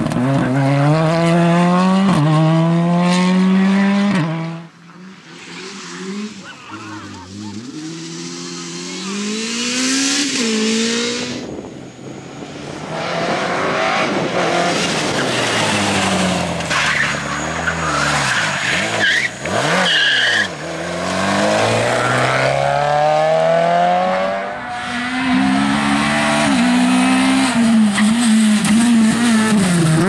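Rally cars at full attack, one after another, among them a Volkswagen Golf Mk2 and a Peugeot 208. Each engine revs hard through quick gear changes, its pitch climbing and dropping as the car goes by. Tyres scrabble and gravel sprays where a car cuts the corner.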